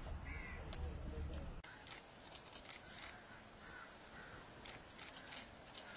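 Crows cawing faintly, with a low hum for the first second and a half and scattered short clicks after it.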